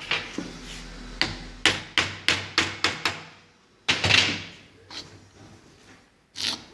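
Hammer blows in a car repair workshop: a run of sharp strikes, about three a second, then a longer clatter about four seconds in and one more knock near the end.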